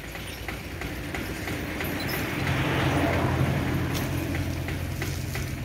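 A motor vehicle passing close by: its engine hum and road noise swell to a peak about three seconds in, then fade, over faint regular clicking.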